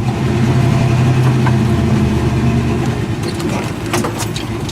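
1963 Chevrolet C30 one-ton truck's engine running at low speed while the truck is eased into a parking spot. It is a steady low hum, stronger for the first three seconds and then settling back, with a few light clicks near the end.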